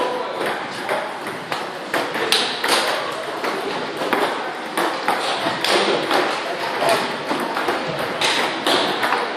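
Table tennis balls clicking sharply off paddles and tables, many hits in quick, irregular succession.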